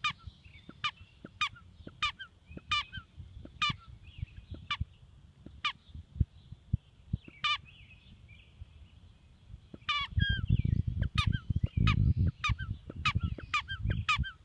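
Squeaky rubber ball being chewed by a large dog: short, high squeaks, about twenty of them at an uneven pace, with a pause in the middle. A loud low rumbling noise joins from about ten seconds in.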